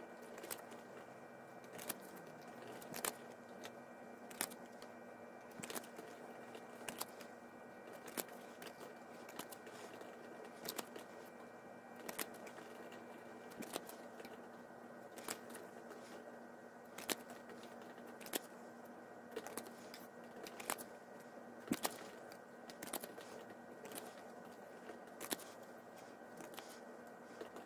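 Chaotic trading cards being handled one at a time, a short soft click or snap about every second as each card is taken off the pile, over a faint steady hum.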